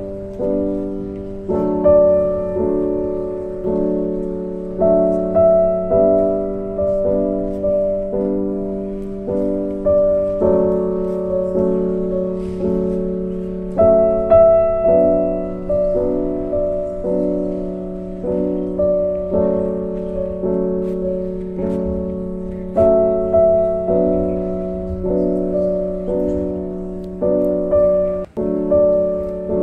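Slow piano music: chords struck at an even, unhurried pace, each left to ring and fade before the next, with a brief break just before the end.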